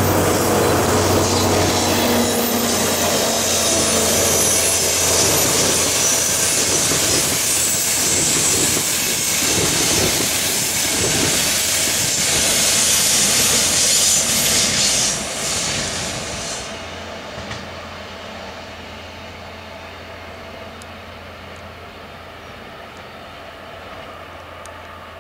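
Passenger train coaches rolling past, their wheels rumbling and hissing on the rails. The noise drops off sharply about fifteen seconds in as the last coach passes, then fades away into the distance.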